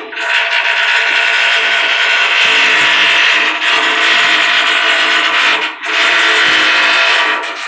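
A loud, steady machine whine with many pitched tones, dropping out briefly about six seconds in.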